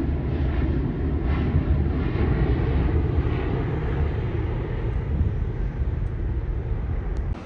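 Boeing 737 jet airliner climbing away after takeoff. Its twin jet engines give a steady low rumble with a hiss on top, fading slightly toward the end.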